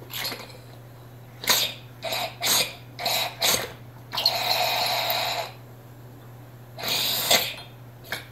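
A John Deere hydraulic cylinder's rod being shoved in and out by hand to drive the gland back, giving a string of short rasping strokes, one lasting over a second near the middle, over a steady low hum.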